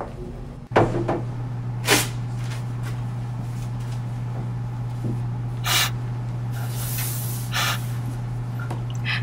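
Break-room counter and sink activity over a steady low hum: a few sharp knocks in the first two seconds, like cupboard doors and dishes, then two short hissing sounds later on, the second lasting about a second.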